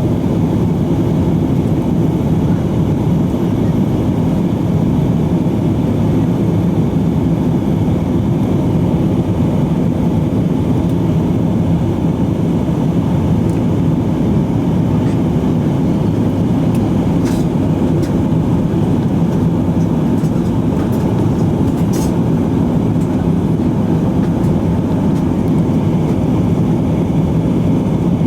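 Airbus A320 cabin noise in flight: the steady drone of the engines and rushing air, unchanging throughout, with a couple of faint ticks in the cabin.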